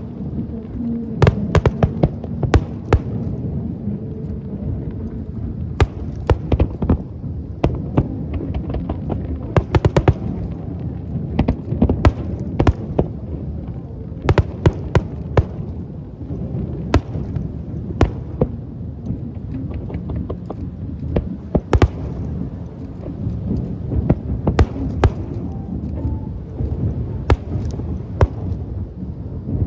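Fireworks show: many sharp bangs and cracks of bursting shells at an irregular pace, sometimes several close together, over a steady low rumble.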